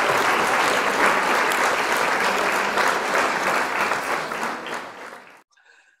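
Applause, a dense steady clapping that fades out about five seconds in.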